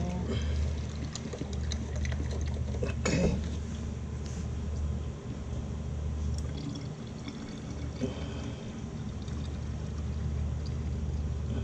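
Liquid being poured into a small container, with light clicks and a sharper knock about three seconds in, over a steady low hum.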